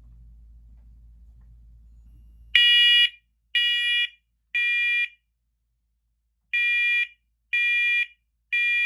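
First Alert SCO500 combination smoke and carbon monoxide alarm sounding its test: two groups of three loud, high-pitched beeps with a pause between, the temporal-three pattern that signals smoke.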